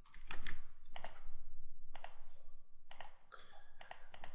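Computer mouse clicking irregularly, sharp clicks, some in quick pairs and a run of several near the end, as vertices are picked and welded in 3D modelling software.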